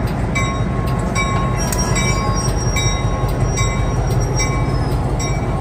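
EMD GP15-1 diesel locomotive's engine running with a steady, heavy low rumble, while a bell rings evenly at about two to three strokes a second.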